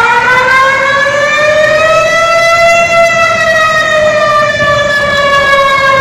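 Loud emergency alert siren wailing: one slow rise in pitch over about three seconds, then a slow fall over the next three.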